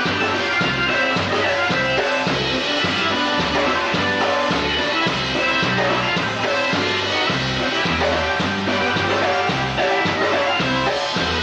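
Live polka band playing an up-tempo tune, with a steady, evenly repeating bass and drum beat.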